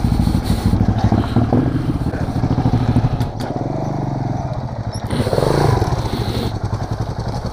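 Motorcycle engines idling, with a steady pulsing beat, and an abrupt change in the engine sound about three seconds in.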